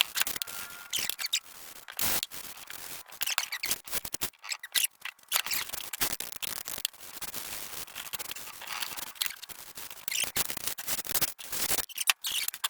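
Hand wire brush scrubbing a metal bench vise part in quick, irregular strokes, cleaning off old grease with brake cleaner.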